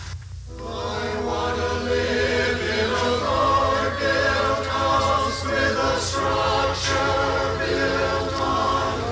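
Choir singing in parts, coming in about half a second in and carrying on as sustained sung music.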